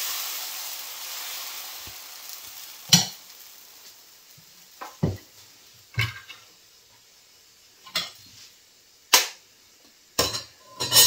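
Sizzling on a hot dosa pan that fades over the first few seconds, then a string of about eight sharp knocks and clinks of kitchen utensils against the pan.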